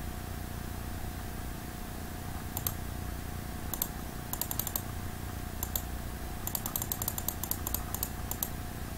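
Faint computer keyboard typing: clusters of quick key clicks starting about two and a half seconds in and stopping near the end, over a steady low hum.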